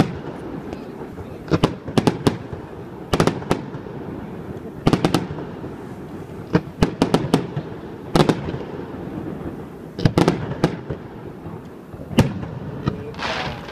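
Fireworks display: sharp bangs every second or two, often two or three in quick succession, over a steady hiss of burning fireworks.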